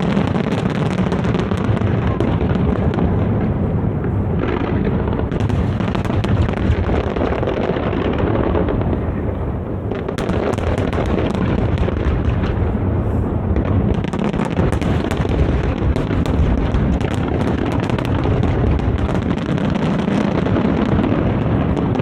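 Large aerial fireworks display in a continuous barrage: overlapping booms with many sharp crackling pops, growing denser in the second half.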